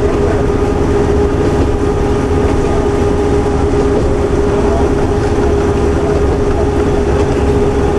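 Kashima Railway diesel railcar running at speed, heard from inside the car: a steady engine drone with a constant hum and a low rumble underneath.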